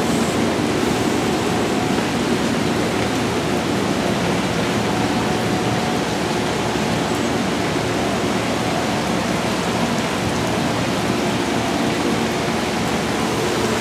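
Steady, even rush of Amtrak passenger cars rolling past on the rails in the rain, with the rain's own hiss blended in and no distinct wheel clicks.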